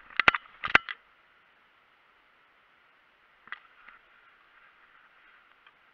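Two sharp, loud knocks about half a second apart near the start, then a softer knock and faint rustling of grass and clothing from a player moving low through tall grass.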